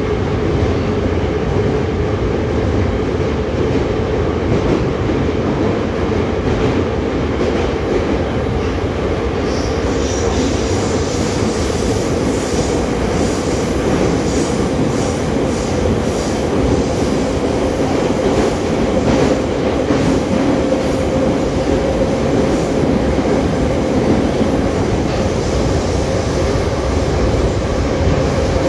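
An 81-717.5/714.5 "Nomernoy" metro train running through a tunnel, heard from inside a passenger car: a loud, steady rumble of wheels and running gear. A high-pitched wheel squeal joins in about ten seconds in.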